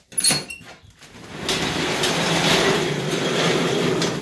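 2003 Yamaha Raptor 350 single-cylinder four-stroke engine: a short loud burst just after the start, then running loudly and steadily for about three seconds before dropping away suddenly near the end.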